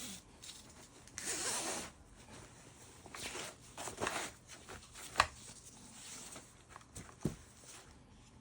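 Nylon webbing strap of a bandolier pouch pulled through its buckle to full length in several short zip-like rasps, with a couple of sharp clicks from the hardware.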